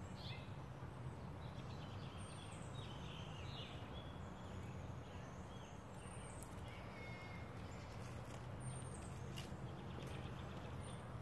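Songbirds chirping and calling faintly, with short trills and quick down-sweeping notes here and there, over a steady low hum of outdoor background noise.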